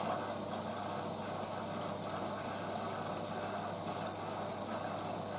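Hoover washing machine taking in water for its final rinse: a steady rush of water into the drum, with a low electrical hum from the inlet valve.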